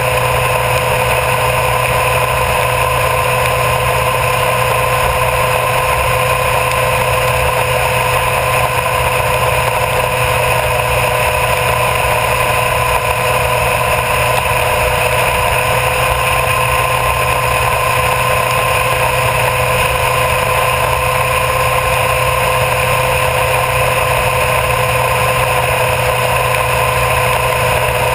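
Honda CBR1000RR Fireblade's inline-four engine running at a steady cruising speed, mixed with wind and road noise. The drone holds one unchanging pitch throughout.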